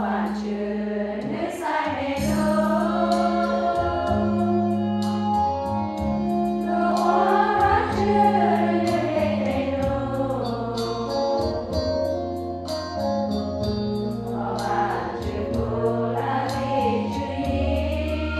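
Women's choir singing a hymn over an accompaniment that holds sustained low notes.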